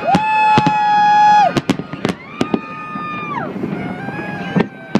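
Fireworks banging over a run of long horn blasts, three in turn at different pitches, each held steady and then sagging in pitch as it dies away. The first blast is the loudest.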